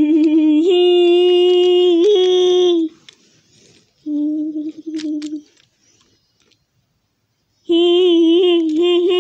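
A child's voice humming long, steady held notes, three of them with pauses between, the longest about two seconds.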